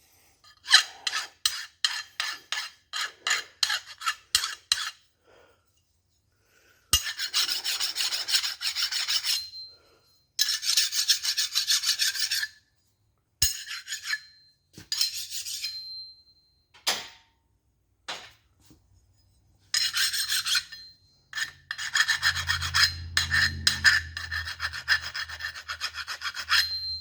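Hand file rasping along the edges of steel Chevrolet 350 connecting rods to deburr them and knock off folded-over metal. It starts with a run of short quick strokes, about three a second, then goes on in longer stretches of filing with short pauses between them.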